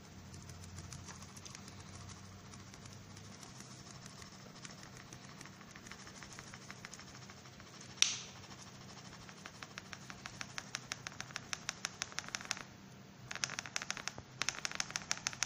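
Flour poured from a plastic packet into a steel Thermomix bowl: a sharp click about eight seconds in, then rapid crackling ticks through the second half as the packet is tipped, over a faint low hum.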